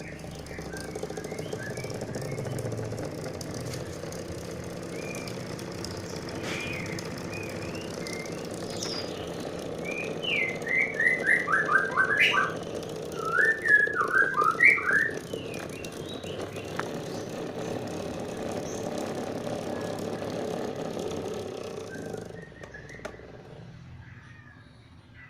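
Unguarded electric fan, no longer running properly, turning with a steady hum that rises over the first couple of seconds and fades out near the end. Two loud runs of quick, falling, whistle-like chirps come about halfway through, over faint scattered chirping.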